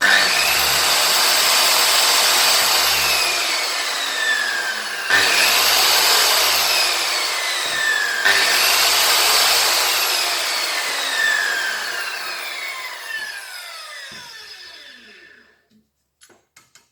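Makita HS6601 1050 W electric circular saw with a 160 mm blade, switched on three times: each time the motor whines up to speed and then winds down with a falling whine. The third wind-down is long and fades out over several seconds.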